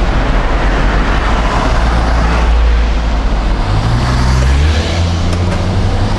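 Road traffic passing on a city street. About four seconds in, a small delivery truck drives past close by, its steady engine hum coming up over the rumble of the traffic.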